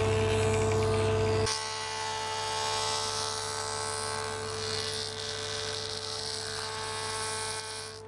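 Electric jointer running steadily with a high, even motor hum while a thin strip of wood is fed over its cutter head. The hum drops in level about a second and a half in.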